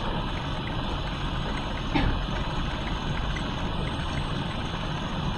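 Steady background hum and hiss of room noise during a pause, with one brief knock about two seconds in.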